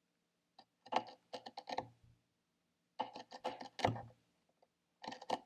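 Marking knife scoring a hinge line into a wooden board along a metal marking gauge. Several short scratching strokes come in three bursts, the first about half a second in, the second about three seconds in and the last near the end.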